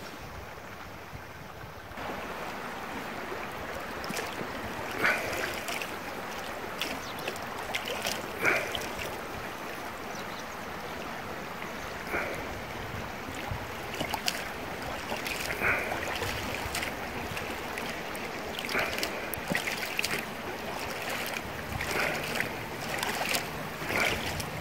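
Steady rush of river water around an inflatable boat, with short splashes every few seconds.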